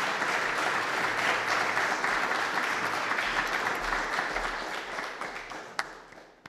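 Audience applauding, a steady dense clatter of many hands that dies away near the end, with one sharp click just before it fades.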